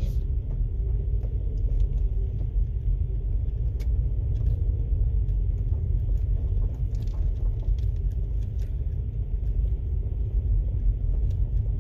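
Steady low rumble of a vehicle heard from inside the cabin while driving, with a few faint clicks.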